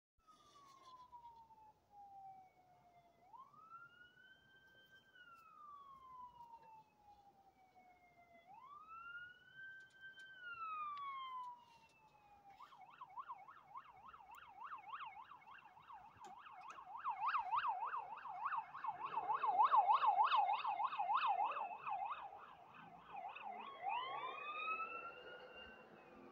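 Fire department rescue unit's electronic siren, responding code 3. It starts in a slow rising-and-falling wail, switches about halfway in to a fast yelp of about three sweeps a second, and goes back to a rising wail near the end. It grows louder as it nears and is loudest during the yelp.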